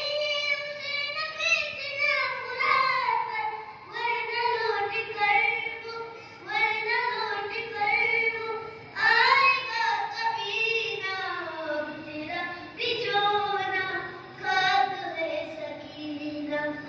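A boy's solo voice chanting a noha, a Muharram mourning lament, unaccompanied, in long melodic phrases with short breaks between them.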